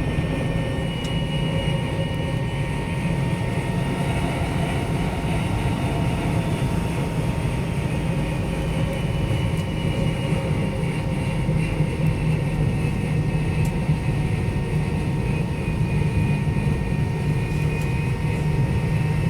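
Steady cabin noise inside a McDonnell Douglas MD-90 airliner: a low drone from its rear-mounted IAE V2500 jet engines with a faint high whine over it, as the jet taxis after landing.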